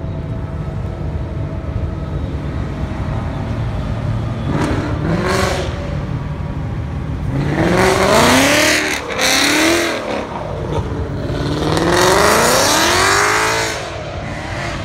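Ford Mustang engine revving hard as the car is thrown sideways through a corner. There is a short climb about five seconds in, then two long, loud runs of rising and falling revs with a brief lift between them, before it fades away over a steady low rumble.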